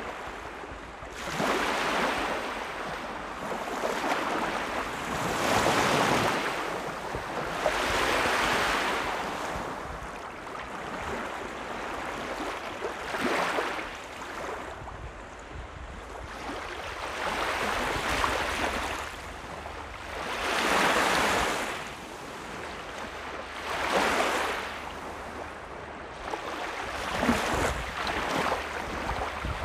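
Small lake waves lapping and washing up onto a sandy beach, each wash swelling and fading every few seconds, over a steady low rumble of wind on the microphone.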